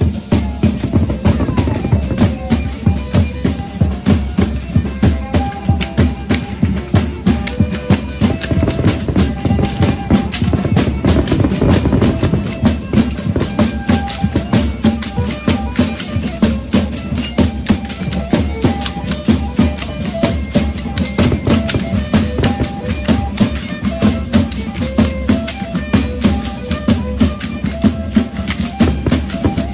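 Matachines dance music: a violin playing a repeating tune over a steady drum beat, with dense fast clicking throughout.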